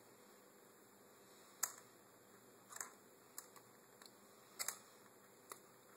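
Faint handling noise: about five small clicks and ticks, spread out, as bait elastic is wound around a peeler crab on a bait loader, the loudest about a second and a half in.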